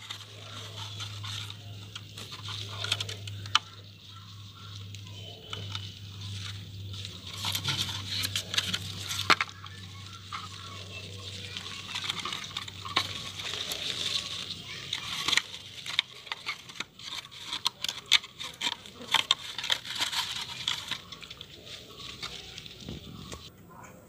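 Hands working dry, crumbly soil and pressing a cut clear plastic container into it: scattered crackling, rustling and small clicks of soil and plastic.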